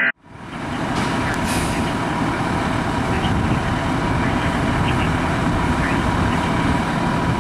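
Fire engine's diesel engine running steadily at idle, a low rumble that fades in over the first second, with a faint steady high tone above it.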